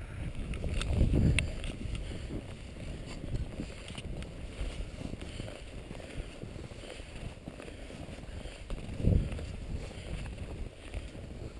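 Wind buffeting the microphone in low rumbles, with two strong gusts about a second in and around nine seconds in, over faint crunches of boots stepping through snow.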